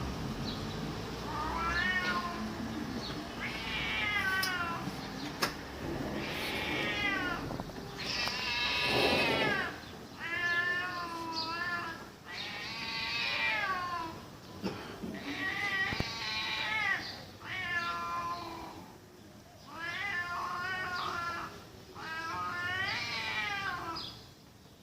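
Domestic cats yowling at each other in a fight: a long run of drawn-out, wavering howls that rise and fall in pitch, one after another with short pauses between them.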